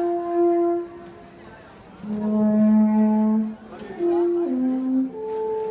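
Alphorn playing a slow melody of long held notes: one note ending under a second in, a short break, a low note held about a second and a half, then three shorter notes stepping down and back up.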